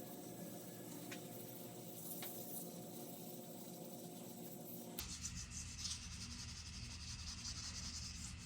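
Hand sanding of a Damascus steel knife blade, sandpaper rubbing back and forth to scuff the blade between ferric chloride etches. Before that a faint hum with a few light clicks; the rubbing starts abruptly about halfway through.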